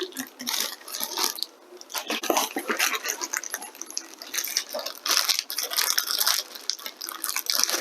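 Plastic packaging rustling and crinkling in irregular bursts with small clicks, as parts of a liquid CPU cooler are unpacked by hand.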